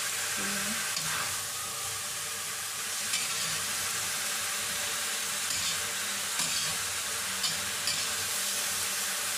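Salmon, onion, tomato and bell pepper sizzling steadily in a stainless steel wok, stir-fried with a metal spatula that scrapes and clicks against the pan several times.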